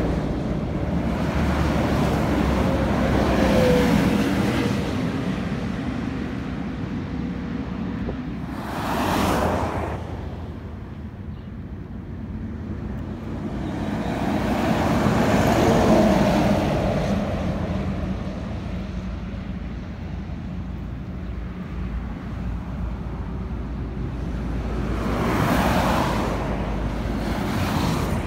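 Highway traffic passing close by: a coach, articulated lorries and cars go by one after another, each swelling and fading, the loudest a lorry about halfway through. A low wind rumble on the microphone lies underneath.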